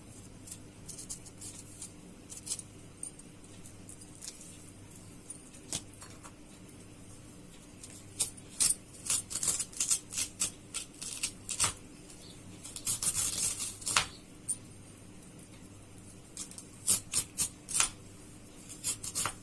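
Moringa drumstick pods being torn open by hand and their pulp scraped out on a plastic chopping board: short crisp snaps and scrapes, few at first and coming thick and fast from a little under halfway in, with one longer scrape just past the middle.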